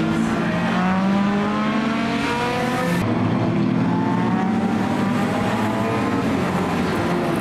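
Several racing saloon cars' engines running hard together, their pitch climbing repeatedly as they accelerate up through the gears. The sound changes abruptly about three seconds in.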